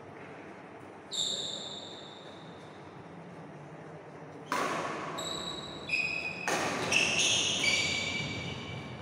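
Badminton racket strings striking a shuttlecock with sharp, pinging hits that ring on in the large hall: one about a second in, then a quick run of hits from about halfway through as a rally gets going.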